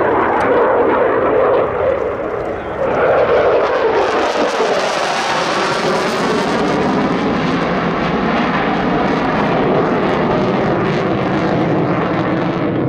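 Jet noise of a Dassault Rafale's twin Snecma M88 turbofans in display flight, with the afterburner lit. It is a continuous loud roar that turns brighter and hissier about four seconds in, then holds steady.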